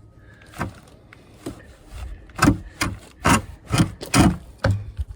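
Foundation hardware being worked into place under a manufactured home: an irregular run of scrapes and knocks, heavier and closer together in the second half.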